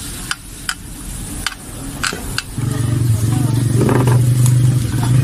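Pork sizzling on a round grill pan, with metal tongs clicking against the pan a few times. About halfway through, a steady low engine hum starts and becomes the loudest sound.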